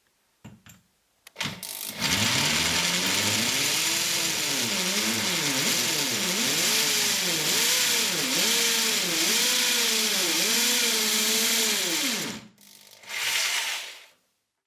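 Parkside PSBM 750 B3 hammer drill's electric motor starting up and running at speed. Its pitch dips and recovers several times before it switches off and winds down. It gives one more brief run near the end.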